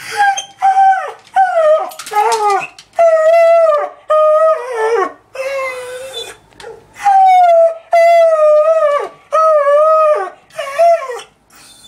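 A stressed beagle mix howling in a run of about a dozen drawn-out calls, each half a second to a second long with short breaths between, many wavering and dropping in pitch at the end.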